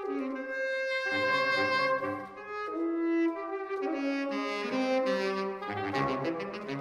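Saxophone quartet of soprano, alto, tenor and baritone saxophones playing held, overlapping notes that change pitch every second or so, with low baritone notes coming in briefly twice.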